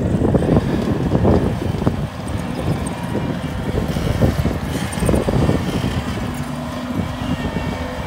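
Bobcat tracked skid-steer loader's diesel engine running under load as the machine drives and grades dirt, louder for the first couple of seconds and then easing off.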